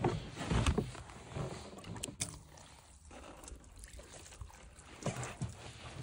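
Water poured and splashed over a rough-sawn white oak board, with a few light knocks.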